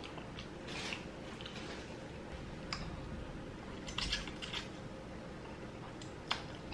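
A person eating spicy noodles: faint slurps and chewing with short mouth smacks and clicks, a cluster of them about four seconds in.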